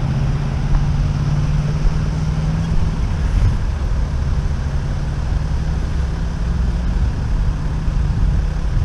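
Engines idling in stationary queued traffic: a steady low rumble, with a low drone that fades about three seconds in.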